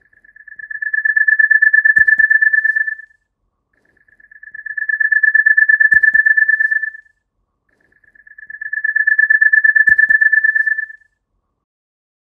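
Pedestrian crossing signal at traffic lights sounding three times. Each sound is a high, rapidly pulsing tone about three seconds long that swells in and then cuts off. A low knock falls partway through each tone.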